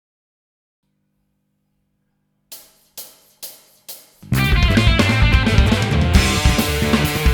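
A rock band's live performance begins. Four evenly spaced count-in taps come about half a second apart, then the full band comes in at once with drum kit, cymbals, bass and guitar.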